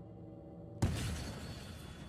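A single pistol shot about a second in, sudden and loud, its echo dying away over the following second, over a low music drone.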